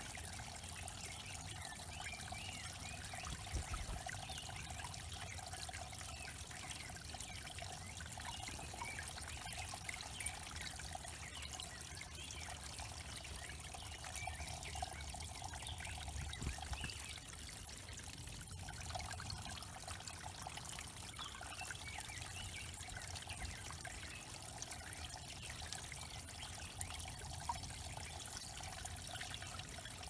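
Small pond waterfall trickling steadily over stacked stone ledges into a shallow pool.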